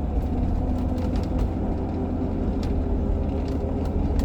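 2004 Jeep Grand Cherokee heard from inside the cabin while driving: a steady low rumble with a steady hum and scattered sharp clicks. This is the unidentified drivetrain noise that began after a front differential fluid change and comes when the throttle is applied; the owner thinks it sounds like the drive shaft catching on something.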